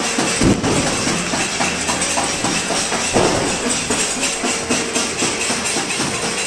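Neighbourhood-wide din of people banging steel plates and pots and clapping, a dense metallic clatter and jangle. Two heavier thuds stand out, about half a second in and about three seconds in.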